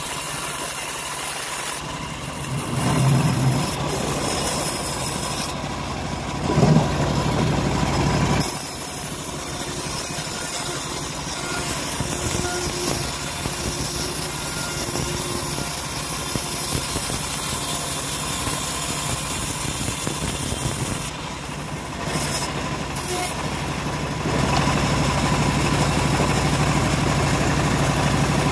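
Homemade vertical bandsaw mill running and ripping a slab of hard johar wood: a steady machine drone under the hiss of the band blade cutting through the timber, with two brief louder swells about three and seven seconds in.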